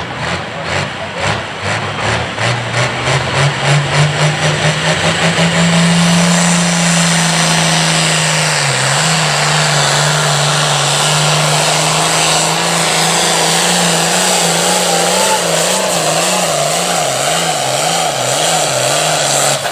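Pro farm class pulling tractor's diesel engine at full throttle hauling the sled, its pitch climbing over the first several seconds and then holding. In the second half the engine note wavers up and down in a regular rhythm as the tractor bounces down the track.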